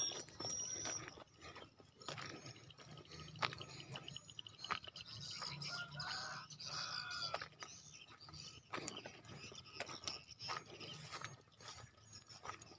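Footsteps crunching and rustling on a track, irregular short steps, with faint bird calls in the background.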